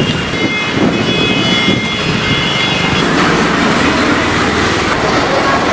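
Steady rushing noise of a disinfectant sprayer: a tanker's pump forcing sanitizer through a hose and nozzle. Faint high whining tones run through the first three seconds, and the hiss turns a little brighter after that.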